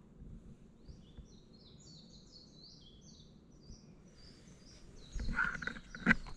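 A songbird singing a quick run of short, falling high-pitched notes against steady outdoor background noise. Near the end there are a few close rustles and a sharp knock, the loudest sound, from handling near the microphone.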